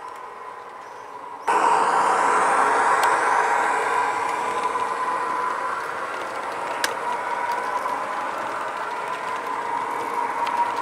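HO-scale model train running on layout track: the coaches' wheels rolling over the rails with a steady whine from the train. The sound jumps sharply louder about a second and a half in, then slowly eases off.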